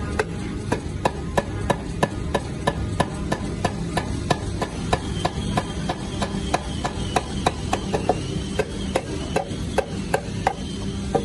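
Metal-headed hammer striking a wood chisel in rapid, even blows, about three a second, chopping a mortise into a hardwood block. A steady low hum runs beneath.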